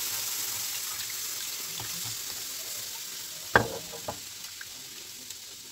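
Warm milk poured into a hot flour-and-butter roux in a non-stick frying pan, sizzling with a steady hiss that slowly dies down as the pan fills. A sharp knock comes about three and a half seconds in, then a smaller one and a few light clicks.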